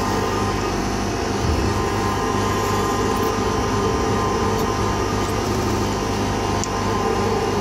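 Steady hum of a NEUERO pneumatic grain conveyor's electric motor and blower running without load, switched over to delta after its star-delta start.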